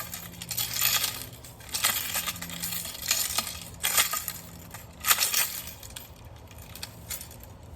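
Metal chain links of a three-section staff jangling and clinking as the staff is swung in strikes, a rattling burst about once a second, five times, then quieter.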